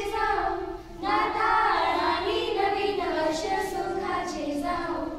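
Young girls singing a slow song with long held notes; a brief break just before a second in, then a new sung phrase carries on.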